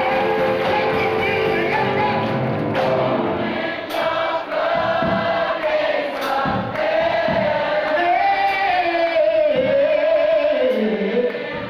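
Gospel singing: a man's voice amplified through a handheld microphone sings long held notes that slide up and down, with instrumental accompaniment and other voices joining in.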